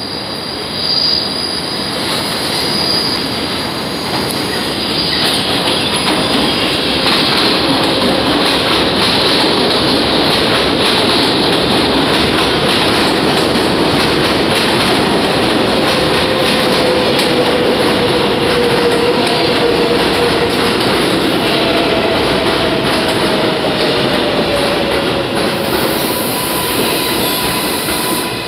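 R188 subway train of the 7 line running into the station along the platform: a steady rumble and clatter of steel wheels on the rails. A high wheel squeal comes in the first few seconds, and a faint whine slides slightly lower in pitch in the second half.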